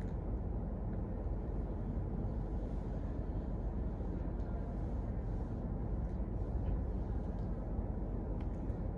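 Room tone: a steady low rumble and hiss of background noise, with a few faint clicks.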